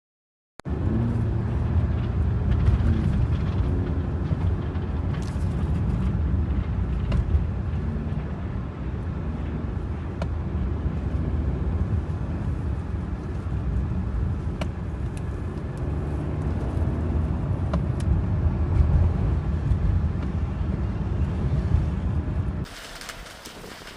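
A vehicle on the move: a steady low rumble of road and engine noise, with a few faint clicks. It cuts off suddenly about a second before the end, leaving a much quieter background.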